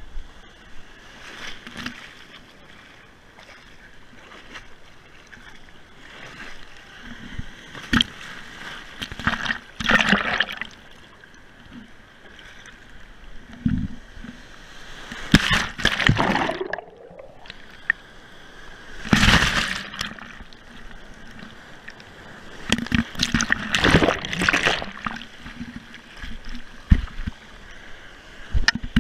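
Ocean surf sloshing and splashing against a GoPro held at the water's surface. Several loud splashes come as waves break over the camera, and the sound turns briefly muffled about halfway through.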